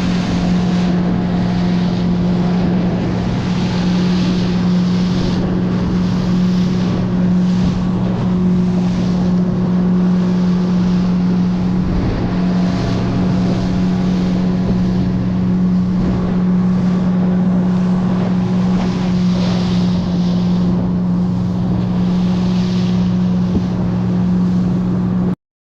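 A small boat's outboard motor running steadily, with wind noise on the microphone.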